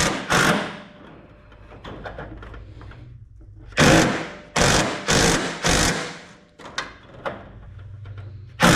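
A tool tightening the bolts of a truck's hood latch, heard as a run of short rattling bursts: a few at the start, a cluster of four about four seconds in, and another near the end.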